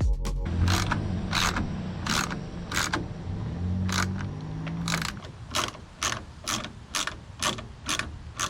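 Ratchet wrench tightening nuts onto bolts, with repeated sharp ratcheting clicks that come a second or so apart at first and about three a second over the last few seconds.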